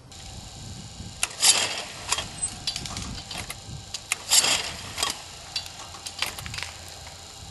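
Promatic Huntsman twin clay-trap machines cycling: a run of mechanical clicks and clacks, with two louder bursts about three seconds apart.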